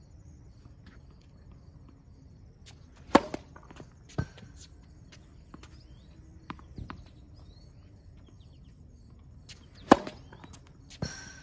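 Tennis racket striking the ball on a serve, a sharp pop about three seconds in and another near the end. Lighter knocks in between come from the ball bouncing on the hard court.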